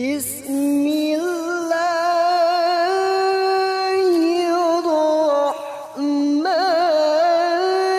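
A single voice singing long, held notes with a wavering, ornamented pitch. It breaks off briefly about five and a half seconds in, then carries on.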